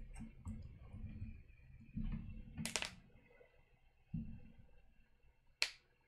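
Clicks of a computer keyboard and mouse at a desk: a quick cluster of sharp clicks about halfway through and a single sharp click near the end, with low dull thumps in between.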